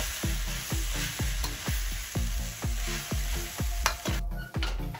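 Egg noodles and vegetables sizzling in a hot wok while a metal ladle stirs and tosses them. The sizzle drops away about four seconds in.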